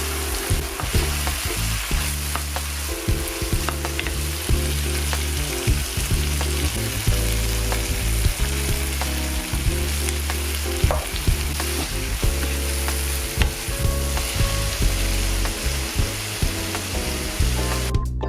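Food sizzling in a frying pan, a steady hiss with scattered clicks. A low background tune plays underneath, and the sizzle cuts off just before the end.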